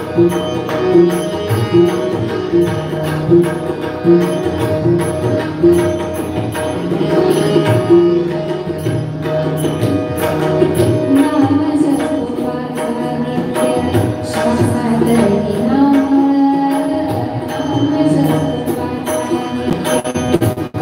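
A Marathi abhang (devotional song) performed with a steady hand-drum rhythm under sustained melodic notes, a singing voice rising and falling over it at times.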